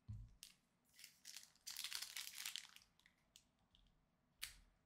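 Foil wrapper of a Pokémon card booster pack crinkling in the hands as it is picked up and handled for opening, in irregular bursts that are densest a little under two seconds in and again near the end.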